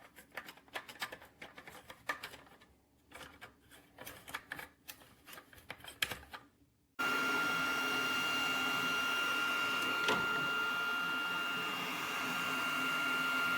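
Irregular light clicks and rattles of parts being handled for about the first half. Then a sudden cut to a Flashforge Adventurer 5M 3D printer running, with a steady fan hiss and a steady high whine.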